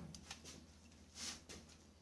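Near silence: a faint steady low hum, with a couple of soft brief noises around the middle.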